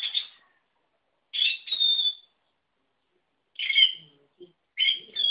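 Lutino peach-faced lovebird making short, high-pitched squeaky calls in four bursts, some of two syllables, its imitation of the name "Leti".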